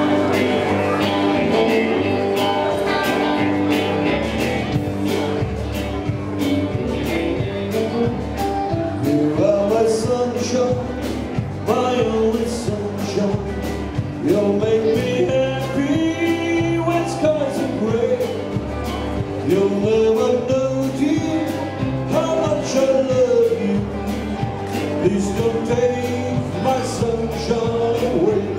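Live country band playing through a PA: a steady drum beat under electric guitars, with a lead melody line rising and falling in phrases over it.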